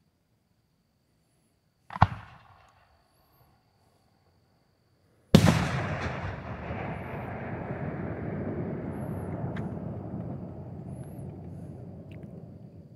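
A single aerial firework shell. A sharp report comes about two seconds in as the shell is launched from its mortar. About three seconds later comes the much louder bang of the shell bursting, and a long rumbling tail dies away over about seven seconds.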